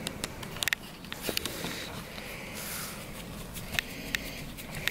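Scattered light clicks and taps of a screwdriver and gloved hands handling the plastic housing and wiring of an e-bike battery's LED panel, at irregular moments.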